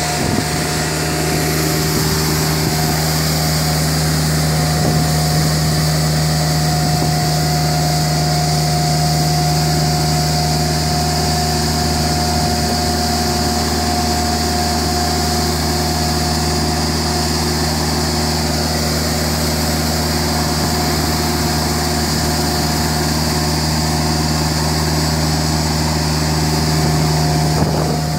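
Nilfisk CR2250 compact sweeper running at a steady pace while it works, an even engine hum under a constant high whine.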